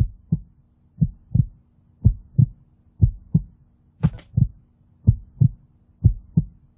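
Heartbeat sound effect: paired lub-dub thumps about once a second over a faint steady low hum, with a brief crackle about four seconds in.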